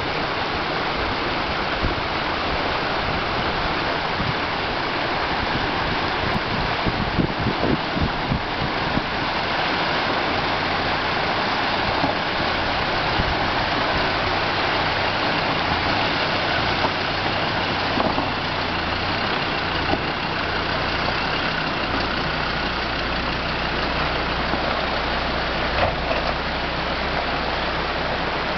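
Land Rover Discovery engine running at low revs as the 4x4 crawls through a shallow rocky stream, over the steady rush of the flowing water. A few knocks come about seven to nine seconds in, and the engine's low hum grows steadier near the end as the vehicle climbs out.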